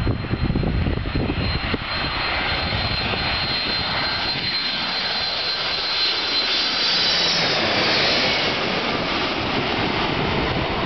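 Boeing 767-300 jetliner passing low overhead on final approach, its twin turbofan engines at approach power: a steady jet roar with a high thin whine on top. The roar swells to its loudest as the aircraft passes, about two-thirds of the way in, and the whine fades soon after. Wind buffets the microphone in the first couple of seconds.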